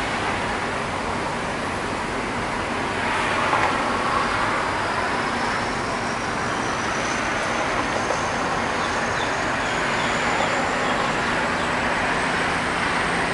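Passenger train running along the track, heard from an open carriage window: a steady rush of wind and wheel-on-rail noise, with a faint high whine rising slowly through the middle.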